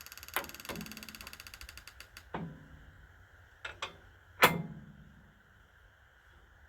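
Rapid, even mechanical clicking for about two seconds, then several sharp metal knocks. The loudest knock, about four and a half seconds in, rings briefly. A faint steady high whine runs underneath.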